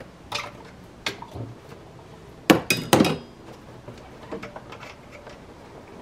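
Handling noise from an engine's air intake hose and a plastic smoke-machine adapter being fitted by hand: a few light clicks and knocks, then a loud burst of clattering knocks about two and a half to three seconds in.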